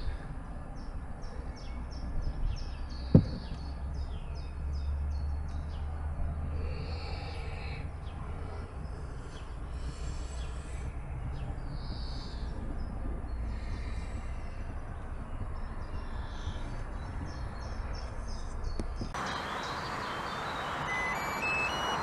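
Low steady hum of the NANOVA D1 countertop dishwasher's fan blowing air through the tub after the drying cycle, with one sharp click about three seconds in. Near the end it gives way to open-air noise with a short run of rising high tones.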